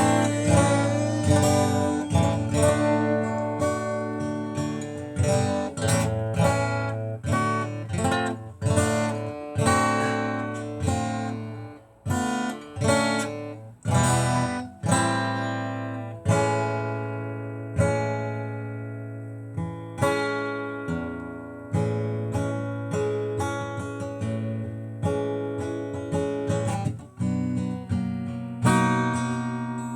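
Acoustic guitar strummed in an instrumental passage, chords struck about once or twice a second and left to ring and fade between strokes.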